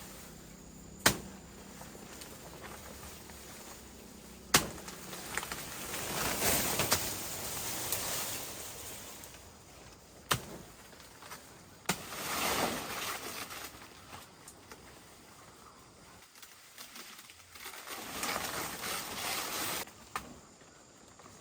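Four sharp knocks or snaps spread through, with spells of rustling noise rising and fading between them.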